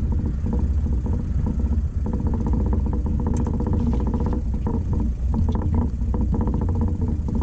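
Yamaha F25 four-stroke outboard motor running steadily at a low, even speed, with no change in pitch.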